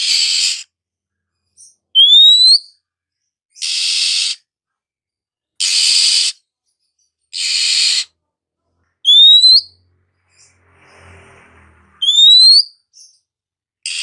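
Oriental magpie-robin calling: three short rising whistles alternating with five harsh, noisy scolding calls about a second long, a call every couple of seconds.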